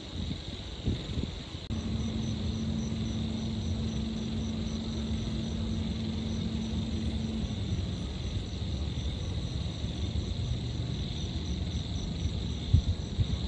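Night city ambience: a low rumble of distant traffic under a steady high trilling of insects. A steady low hum comes in about two seconds in and stops a little past halfway.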